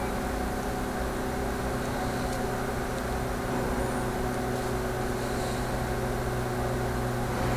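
Steady low hum of running machinery, unchanging throughout, with a few faint clicks.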